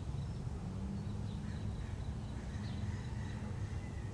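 Outdoor background: a steady low rumble, with faint, short bird chirps scattered through it.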